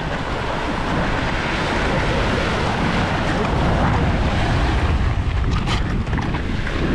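Wind buffeting the microphone over surf washing against the jetty, a steady, loud rush heavy in the low end, with a few short clicks near the end.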